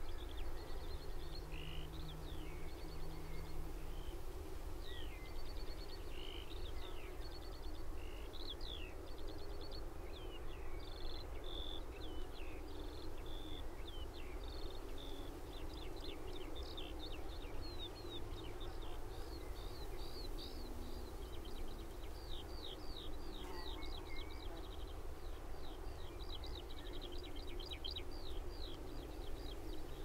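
Eurasian skylark singing on and on, a fast, unbroken stream of high chirps and trills, over a low steady rumble of distant traffic.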